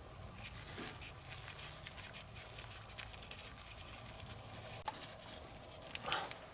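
Faint small clicks and taps of hands at work on an outboard's gearcase: the gear lube pump hose is pulled from the lower drain hole and the drain screw, with a new gasket, is put back in. A sharper click comes about five seconds in, and a short rustle near the end.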